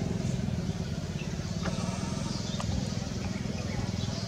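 A motor engine running steadily in the background, a low even rumble. A few faint high squeaks and small clicks sound over it.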